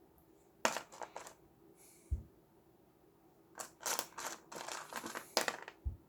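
Handling noises: two bursts of sharp clicks and rustling, with a short low bump about two seconds in and another near the end.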